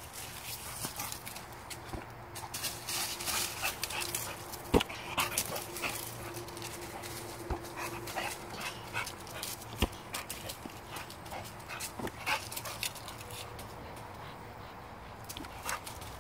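A bulldog at play in dry leaves: frequent crackles as its paws scuff the leaves, mixed with the dog's own noises, and two sharp knocks about five and ten seconds in.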